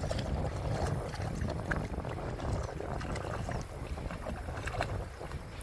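Shallow river water splashing and flowing around someone wading across, a steady rushing with small scattered splashes.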